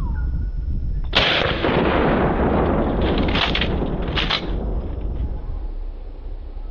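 A single shot from a 12-gauge Mossberg 500 pump shotgun firing a slug, about a second in, its report echoing for several seconds. About two seconds later the pump action is worked with two sharp clacks, ejecting the spent shell.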